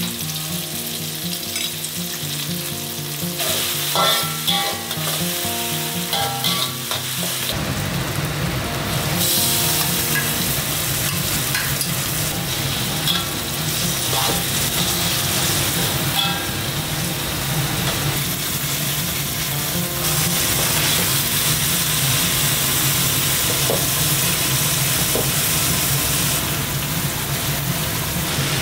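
Pounded chilli and spice paste sizzling in hot oil in an aluminium wok, then beef being stir-fried in it until its juices cook down. A metal spatula scrapes and taps against the wok as it is stirred. The sizzling grows louder about seven seconds in.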